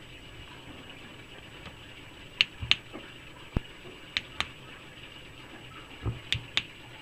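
Clicky tail switch of a Convoy S3 flashlight pressed and released three times, each press a pair of sharp clicks about a quarter second apart, with a dull knock from handling between them.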